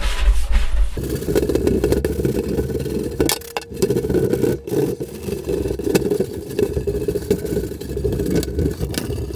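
Hand scrub brush working CLR foam over a glass shower door, scrubbing off hard-water lime and calcium deposits. The rhythmic brushing changes abruptly about a second in to a denser, lower, continuous scraping.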